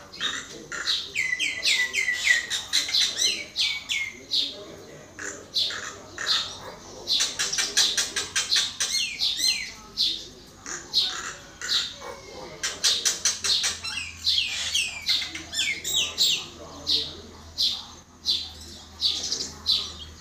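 Common myna chattering and singing: quick runs of chirps, clicks and down-slurred whistles, in several bouts separated by short pauses.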